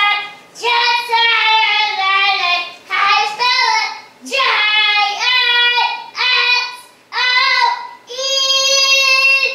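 A young boy singing really, really loud in a string of short sung phrases about a second each, ending on a longer held note.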